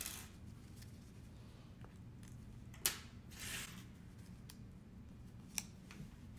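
Metal binder-clip handles clicking as they are squeezed out of the clips on a folded cloth face mask, with a brief rustle of cloth. The sharpest click comes about three seconds in, and a smaller one near the end.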